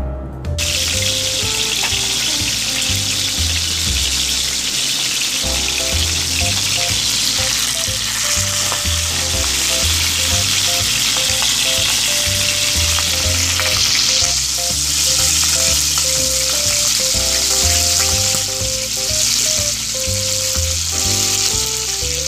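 Stuffed chicken wings sizzling as they fry in oil in a pan, the sizzle starting about half a second in. Background music with melody notes and a steady bass beat plays underneath.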